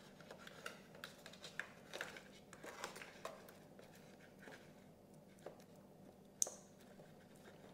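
Faint clicks and rustles of servo leads and small plastic connectors being handled and pushed into an RC receiver, with one sharper click near the end.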